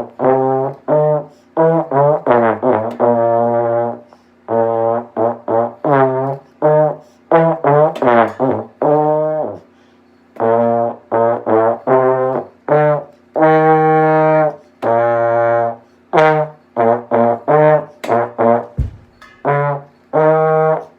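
A student's brass instrument playing a beginner band-method melody in detached notes, some short and some held, with short pauses between phrases. The last note ends right at the close.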